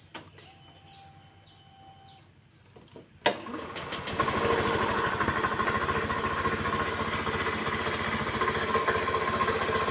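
A freshly rebuilt, oversize-bored motorcycle engine starts about three seconds in and settles into a steady idle. It has a klotok-klotok knock, which the mechanic puts down to the clutch housing mount and its bushings.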